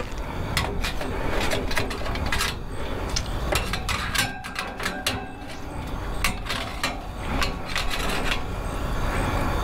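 Irregular clicks, knocks and light clatter of cooking gear being handled at a smoker, over a steady low rumble.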